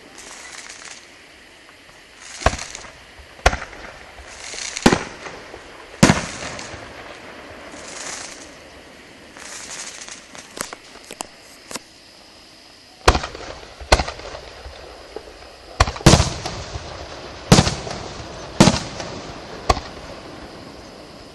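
Fireworks going off: about a dozen sharp bangs. Four come in the first third and the rest crowd together in the last third, with patches of hissing and a few small crackling pops in the quieter stretch between them.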